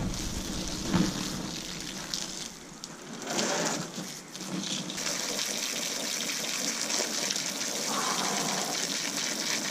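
Garden hose jet of water gushing steadily onto the remains of a pierced, burnt-out LiPo battery, with a sharp knock about a second in.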